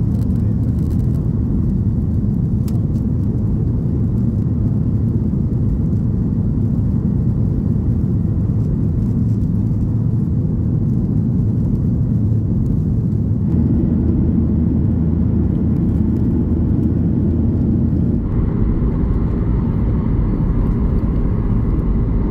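Steady low rumble of a vehicle in motion, changing in tone abruptly twice, about 13 and 18 seconds in.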